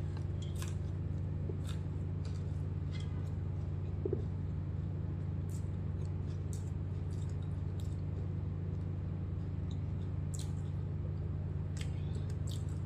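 Close-miked eating sounds: sparse sharp mouth clicks from chewing and fingertips scraping biryani rice off a stainless-steel plate, over a steady low hum. A brief squeak about four seconds in.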